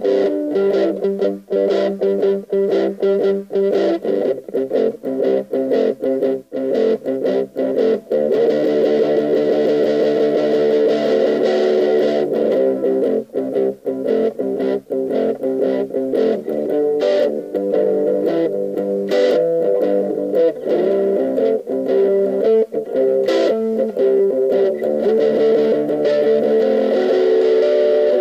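Electric guitar played with a distorted 'brown sound' tone, playing boogie riffs. For the first eight seconds or so the chords are choppy and cut off short, then the riffs run on with notes left ringing.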